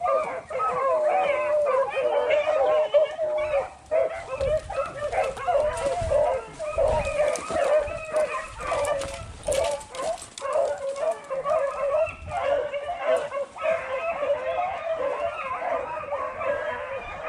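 A pack of beagles baying on a rabbit's trail: many overlapping, wavering howls and yelps that run on without a break.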